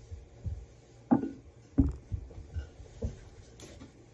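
Low thumps and knocks of someone moving about a small room, with two loud thumps about a second and two seconds in and a few softer ones after.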